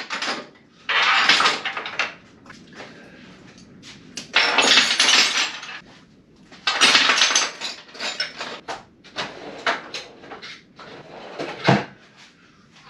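Metal hand tools (spanners, sockets and pliers) clattering and clinking as they are tipped out and laid across a workbench, in several bursts with a single sharp clank near the end.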